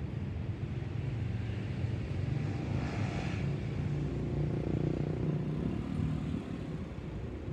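Distant drone of a Lockheed C-130 Hercules's four turboprop engines, a steady low rumble that swells a little past the middle.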